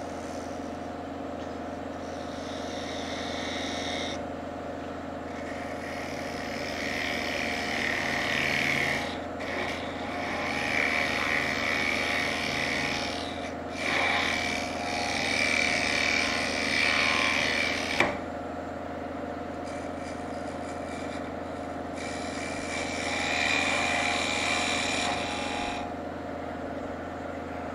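Wood lathe running with a steady hum while a hand-held turning tool cuts into the spinning wooden knob and its inlay. The cutting comes in four rasping passes of a few seconds each, with a sharp click about two-thirds of the way through.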